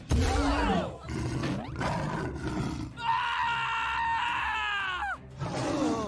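Music mixed with animal roar and growl sound effects, with sweeping glides and a long call about three seconds in that drops in pitch as it ends.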